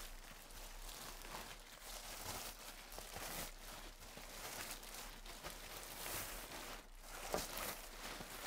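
Clear plastic wrapping crinkling and rustling as a rolled foam mattress is pulled out of its bag, faint and irregular, with a brief louder crackle about seven seconds in.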